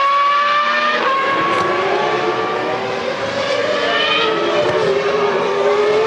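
Formula One car's V10 engine at racing revs, with a gear change about a second in. The engine note then falls slowly and climbs again near the end.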